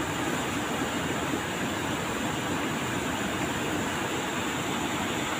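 Steady rushing of a fast mountain river's whitewater rapids, a continuous even noise.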